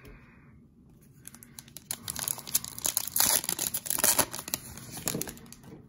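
Trading-card pack wrapper being torn open and crinkled by hand. After a quiet start it becomes a fast, dense run of crackles, loudest about three to four seconds in, then fades.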